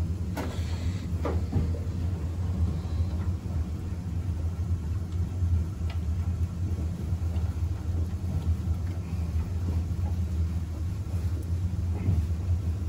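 Steady low hum and rumble of boiler-room machinery running, with a few faint knocks as a water meter is turned by hand onto its pipe fitting.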